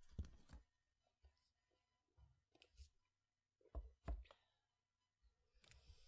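Faint, sparse computer keyboard keystrokes: single clicks with dull thumps, loudest a pair a little under four seconds in, separated by pauses.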